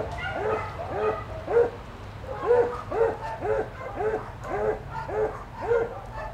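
A dog barking over and over in a steady rhythm, about two barks a second, with a short pause about two seconds in.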